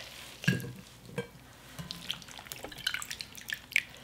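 Salted julienned radish strips being squeezed by hand over a glass bowl of brine: water dripping and splashing back into the bowl in scattered drips, with one louder bump about half a second in.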